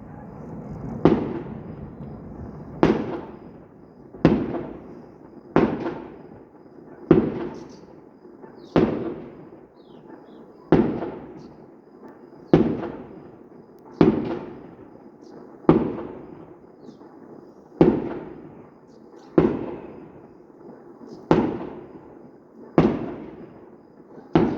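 Fireworks going off: a steady series of loud bangs, about one every one and a half to two seconds, each trailing off in a fading echo.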